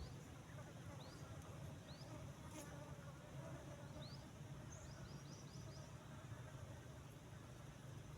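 Faint, steady insect buzzing, like a fly or bee hovering near the microphone. Short high rising chirps come about once a second, with a quick run of several around the middle.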